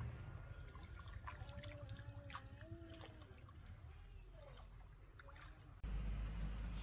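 Water trickling and dripping with small clicks as water vegetables are pulled from a flooded patch. A faint wavering call is heard for about two seconds partway through.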